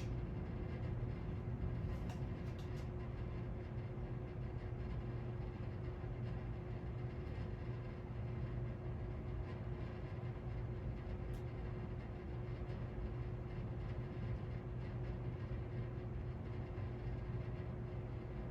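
SMC Rivera ceiling fan running steadily on medium speed: an even motor hum with a constant low tone.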